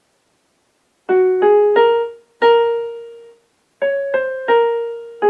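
Piano playing a short phrase in 2/4 from about a second in: three quick notes rising to a held note (F–G–A–A), then three quick notes falling from high C to a held G (C–B–A–G), each note struck and fading.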